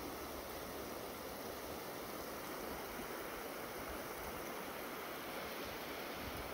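Steady rushing of a mountain stream flowing past.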